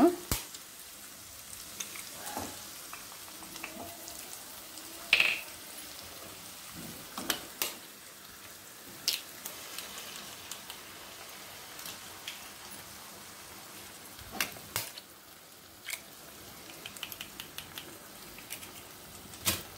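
Chopped vegetables frying with a low, steady sizzle in a metal frying pan, broken by a scattering of sharp taps and clicks as eggs are cracked and dropped into the pan.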